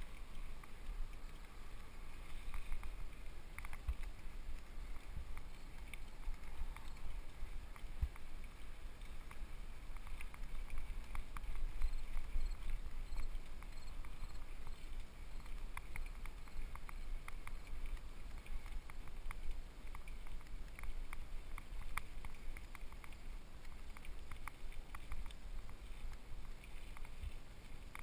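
Specialized FSR Pro mountain bike ridden over a dirt singletrack, heard through a helmet-mounted GoPro HD: a steady low rumble of wind and motion on the camera, with irregular small clicks and rattles from the bike and tyres on the trail.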